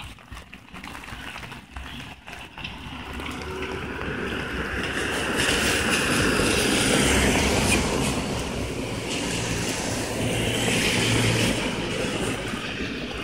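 Cars driving past on a wet road, their tyres hissing through the water. The hiss swells for a few seconds, eases, then swells again with the next car.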